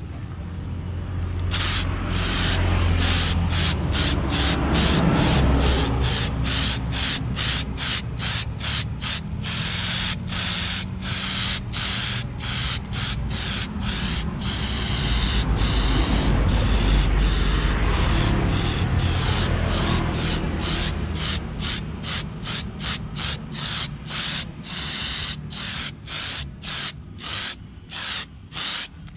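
Aerosol spray-paint can hissing as black paint is sprayed onto a subwoofer box, the spray coming in quick pulses about twice a second. A low rumble rises underneath at times.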